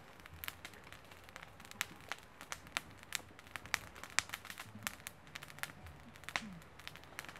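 Irregular soft crackles and clicks. A faint steady low hum comes in about five seconds in.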